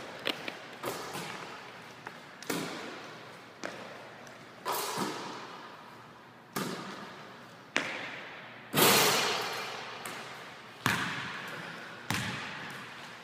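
Basketball thuds ringing through a large gym, each with a long echo, about one every second or so; the loudest comes about nine seconds in.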